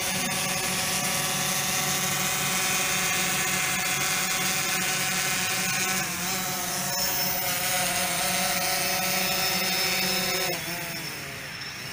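DJI Phantom 4 Pro quadcopter's propellers and motors hovering close by, a steady buzzing whine. The pitch shifts a little about six seconds in, and near the end the sound gets quieter and the pitch wavers.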